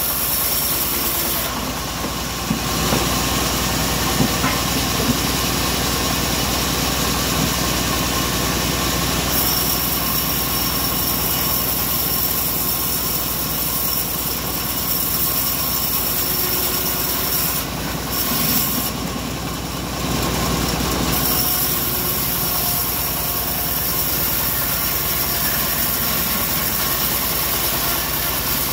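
Homemade band sawmill running, its vertical band blade ripping a hardwood beam fed along the roller table, over the steady drone of the engine that drives it. The high cutting hiss eases briefly twice, and a few sharp knocks of the timber come about four seconds in.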